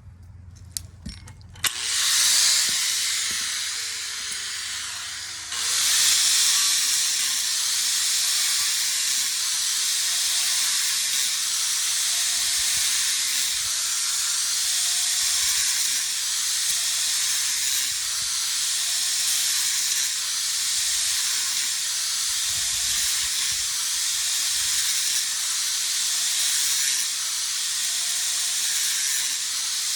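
Steady hissing of a cutting tool working through a ceiling fan motor's casing. It starts about two seconds in, dips and starts again near six seconds, then carries on with small rises and falls.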